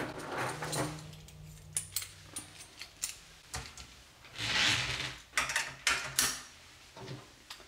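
Metal clips and rings of dog-grooming restraints clicking and clattering as the restraints are put on a dog. There is a short rasping noise about halfway through.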